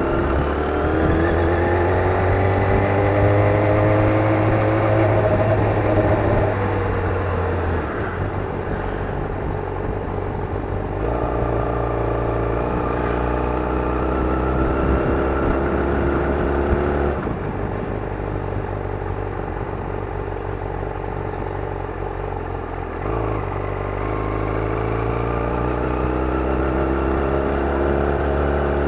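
Yamaha YZF-R6 600 cc inline-four engine heard from on board while riding slowly in town. Its pitch climbs over the first six seconds, then drops, followed by several steps up and down in engine speed.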